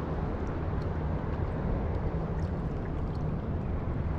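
Steady low rushing of water and wind around a kayak on the open sea, with a few faint clicks.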